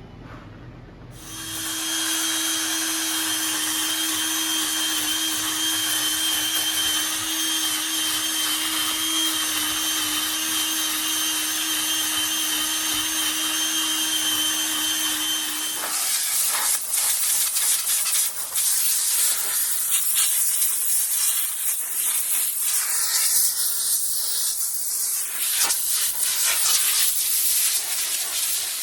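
Handheld electric power tool working on wood. It starts about a second in and runs at a steady pitched whine, then turns rougher and uneven, with surges and dips, for the second half.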